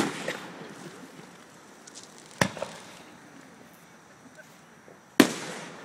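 Distant fireworks going off: three sharp bangs, one right at the start, one about two and a half seconds in and one near the end, each trailing away in an echo, with a smaller pop after the first two.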